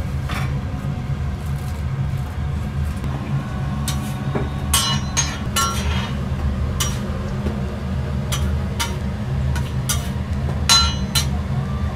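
A metal spatula and utensils clink and tap on a flat steel griddle and stainless trays as toast slices are moved, giving a dozen or so irregular sharp clinks, a few with a brief ring. Under them runs a steady low hum.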